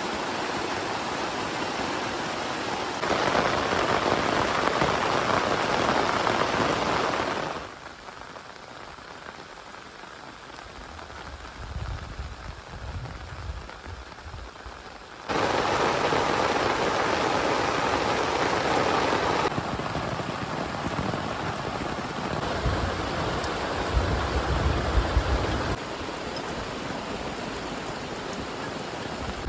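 Heavy rain falling steadily, jumping abruptly louder and softer several times. A low rumble comes and goes in the quieter stretches.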